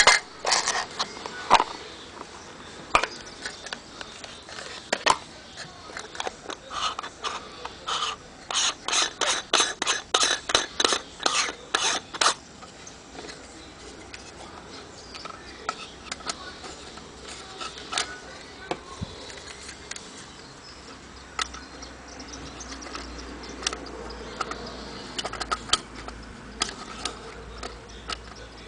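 Clicks and light rattles of camera accessories being handled and fitted: a filter in a plastic case, a lens adapter tube and a petal lens hood on a Nikon Coolpix P500. A quick run of clicks comes about eight seconds in and lasts some four seconds, then sparser clicks follow.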